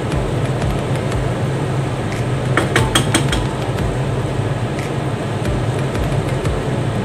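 Chicken and carrots simmering in sauce in a non-stick frying pan, a steady bubbling hiss over a low hum, as a wooden spatula stirs. About two and a half to three and a half seconds in, the spatula knocks against the pan in a quick run of clicks.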